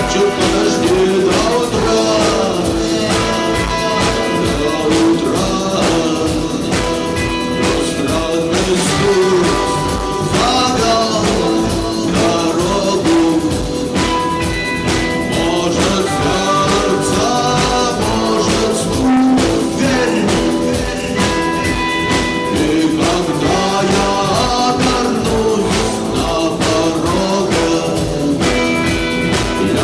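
A song: singing over a full band with a steady beat.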